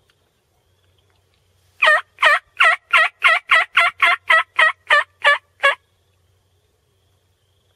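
Turkey yelping: a loud run of about a dozen evenly spaced calls, about three a second, starting about two seconds in and stopping abruptly after about four seconds.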